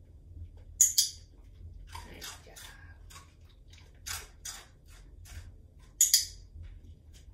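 Two sharp double clicks about five seconds apart, with a run of softer quick taps and clicks between them, from a dog pivoting its hind feet around an upturned bowl perch during a training drill.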